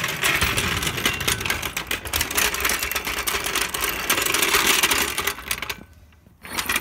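Steel 3-ton floor jack rolled across block paving, its wheels and handle rattling in a fast, continuous clatter. The rattle stops about six seconds in, then comes back briefly just before the end.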